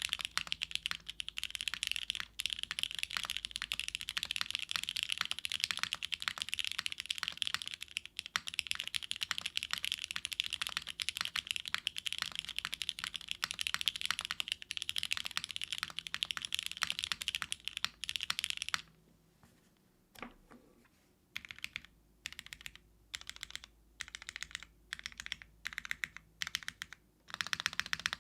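Typing on a gasket-mounted mechanical keyboard with lubed Cherry MX2A Black linear switches, an aluminum plate and GMK keycaps. Fast continuous typing stops about 19 seconds in. After a short pause come single key presses about two a second, then fast typing starts again near the end.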